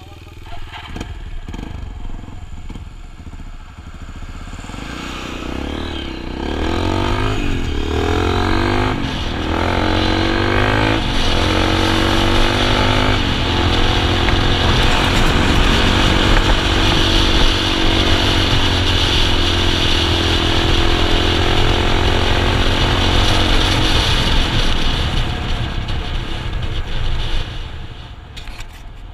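A vehicle engine revs up through several rising steps like gear changes, then runs loud and steady at high revs, easing off near the end.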